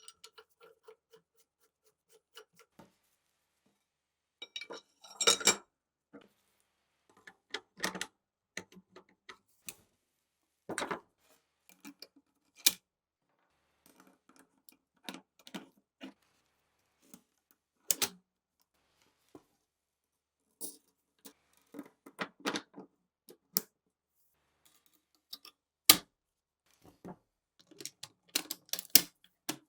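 Metal gun parts clinking and clicking as they are handled. Scattered sharp clicks and knocks come with quiet gaps between them, and a quick run of them comes near the end.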